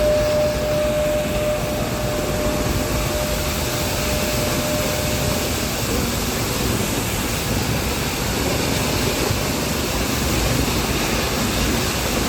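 Nilgiri Mountain Railway toy train running, a steady even noise with no breaks. A single steady high tone sounds at the start and fades out within the first few seconds.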